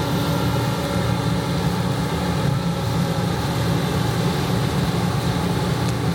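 John Deere 9610 walker combine running steadily while harvesting wheat: an even mechanical drone with a few steady whining tones over it.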